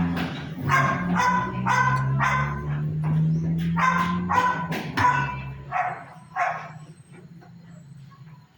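A dog barking repeatedly in quick runs of two or three barks, about ten in all, the last few fainter. Underneath, a steady low hum stops a little past halfway.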